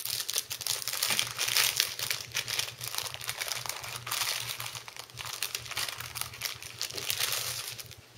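Plastic bag crinkling and rustling continuously in the hands as it is opened and pulled off the toy inside, dying away just before the end.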